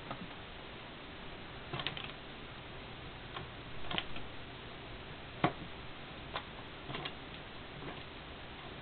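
A cat's tail tapping against a surface as it wags: light, irregular taps and clicks, the sharpest a little past halfway.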